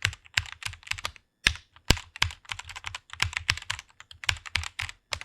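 Typing on a computer keyboard: a quick run of keystrokes, several a second, with a brief pause about a second in.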